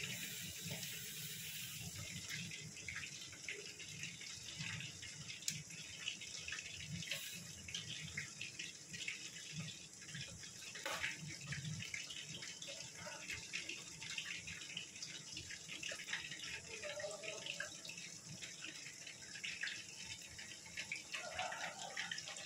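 Milk being poured from a pan into ceramic mugs over whipped coffee: a steady splashing, trickling pour with small crackling ticks.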